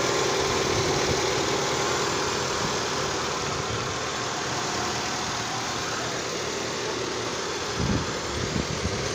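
Car engine idling steadily with a constant tone over it, heard at the open engine bay while the air conditioning is charged with refrigerant through manifold gauges. A few low bumps come near the end.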